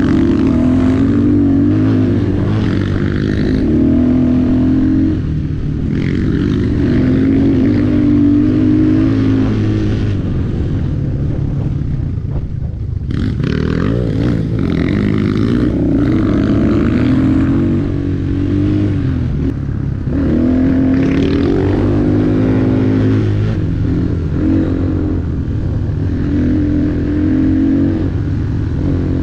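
Enduro motorcycle engine under way on its break-in ride, its pitch rising and falling again and again as the throttle is opened and eased off, with short drops between pulls.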